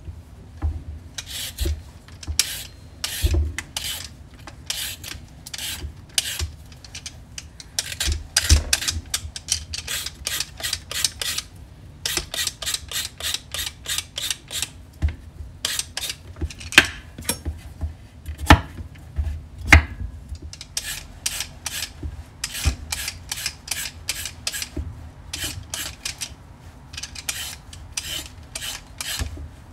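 Hand vegetable peeler scraping down raw carrots in quick repeated strokes, roughly two a second, with a few louder knocks among them.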